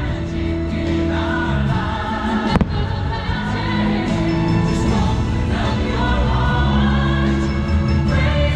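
Music with choir singing, sustained notes over a steady bass, with a single sharp bang about two and a half seconds in.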